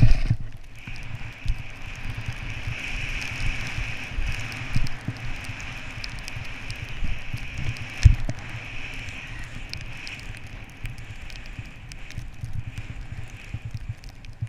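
Skis running through powder snow with a steady hiss, while wind buffets the skier's camera microphone in gusty rumbles. A sharp knock right at the start and another about 8 seconds in.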